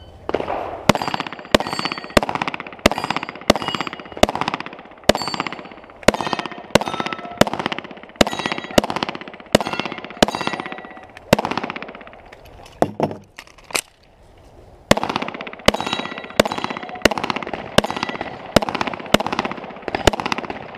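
Handgun shots fired in quick succession at steel targets, about one to two a second, each followed by the clang and ring of a struck steel plate. The firing breaks off for about two seconds a little past halfway, then picks up again.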